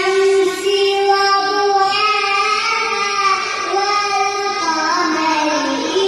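A young child's voice reciting the Quran in a drawn-out melodic chant, holding long notes that bend slowly in pitch.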